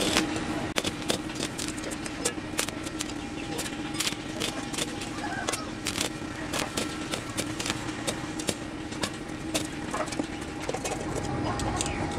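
Stick (arc) welding with a thin electrode rod on a steel bowl: the arc crackles and sizzles irregularly over a steady hum.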